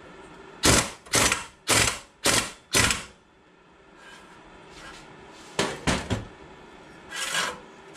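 Ratchet wrench clicking through five quick strokes about half a second apart, tightening the nut that holds the cooling fan onto an air-cooled VW alternator shaft, followed by a few more short mechanical clicks near the end.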